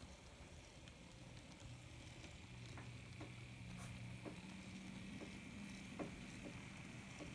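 The small electric motor of an N scale Atlas CN GP40 model locomotive running, giving a faint steady hum with a thin high whine over it, and light irregular clicks as the wheels roll over the track.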